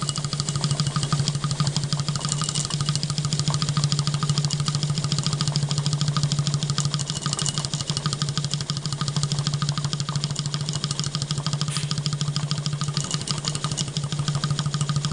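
Model three-cylinder triple-expansion steam engine running on steam, with a rapid, even beat of exhaust and moving parts over a steady low hum.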